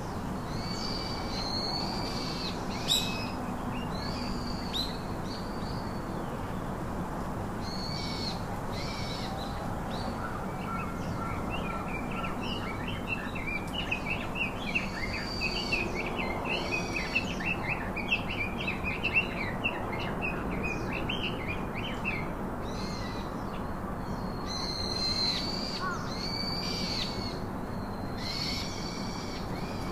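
Birds calling in the background: short high calls repeated every second or two, with a run of fast chattering chirps through the middle, over steady low outdoor noise.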